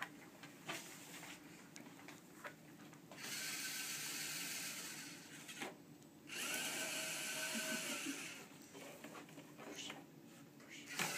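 LEGO robot's geared electric motors whining as it drives across the competition mat, in two runs of about two and a half seconds each with a short pause between, plus a few light clicks and knocks of plastic parts.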